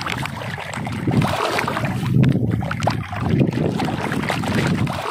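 Wind buffeting the microphone over water sloshing and lapping, with the low rumble swelling and easing in repeated surges.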